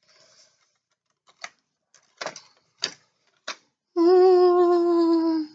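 A few light clicks and taps from small plastic craft pieces being handled, then a woman humming one held note, slightly falling, for about a second and a half near the end.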